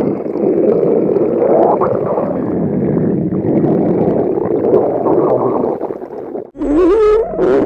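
Stomach growling: a long, continuous gurgling rumble that cuts off suddenly, followed near the end by a shorter growl whose pitch wavers up and down.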